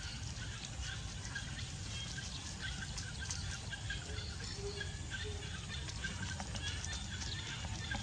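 Outdoor ambience: a steady low rumble under many small, quick bird chirps.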